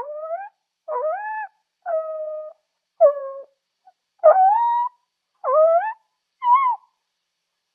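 Zebra calling: a series of about seven short, clear, high-pitched calls about a second apart, some rising in pitch and some held level.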